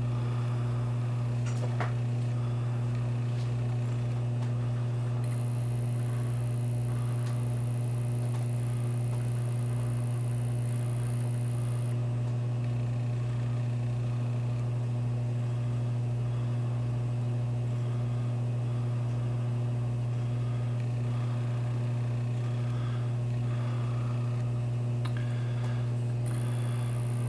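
Steady low electrical hum from mains-powered equipment. A faint high-pitched whine comes in about five seconds in, stops around twelve seconds, and returns near the end.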